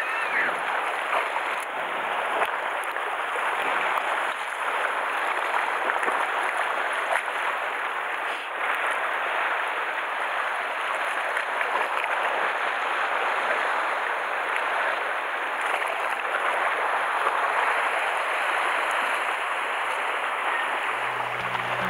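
Sea waves washing and splashing against a rocky shore: a steady rush of surf. A low tone comes in near the end.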